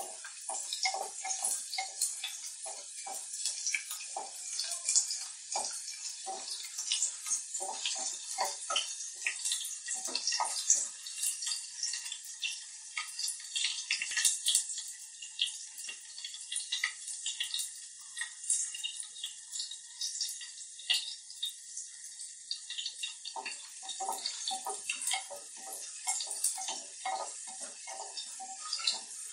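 Chopped shallots and fenugreek seeds sizzling and crackling in hot oil in a clay pot. A wooden spoon stirs and knocks against the pot through the first ten seconds or so and again near the end.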